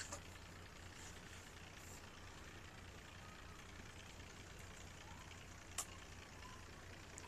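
Near silence: a faint steady low hum, broken by two brief clicks, one just after the start and one near the end.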